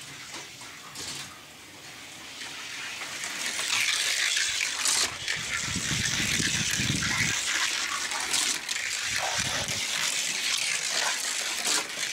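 Hot Wheels Rodger Dodger 2.0 die-cast car rolling down a gravity race track, its wheels making a steady rushing hiss that builds over the first few seconds. A lower rumble comes in partway through, with a few sharp clicks.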